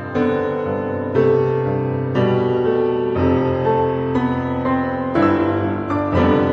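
Background music: a piano piece with a new chord struck about once a second.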